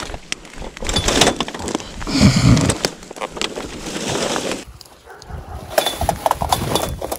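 People scrambling through a gate that one of them holds down: scuffling, rustling and a string of sharp knocks and clanks, loudest a little over two seconds in.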